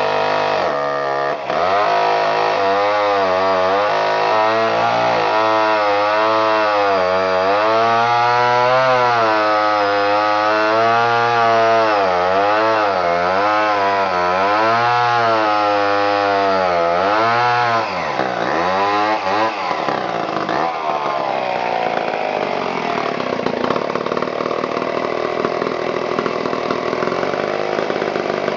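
Homelite 990G two-stroke chainsaw cutting through a log at full throttle, its engine note wavering up and down under load. About two-thirds of the way through it comes out of the cut and drops to a rough idle.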